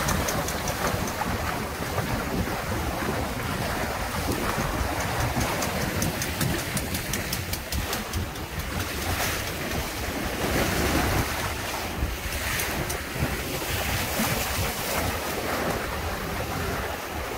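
Wind buffeting the microphone over water rushing and splashing along the hull of a Windrider 17 trimaran sailing fast, surging and easing with the gusts and waves.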